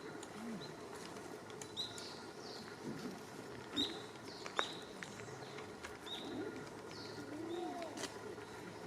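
Wild birds calling in forest: short, sharp high calls that drop quickly in pitch, about six of them spaced a second or so apart, with a lower wavering call near the end.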